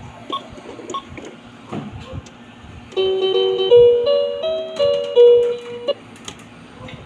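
A short electronic tune of stepped keyboard-like notes from a talking educational toy's speaker, lasting about three seconds and starting about three seconds in. A few faint clicks come before it.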